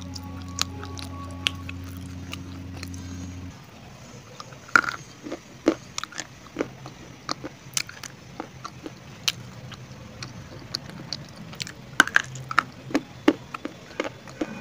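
Sharp, irregular crunches of a person biting and chewing hard pieces of baked edible clay (Punjab mitti). A steady low hum runs under the first few seconds and stops about three and a half seconds in.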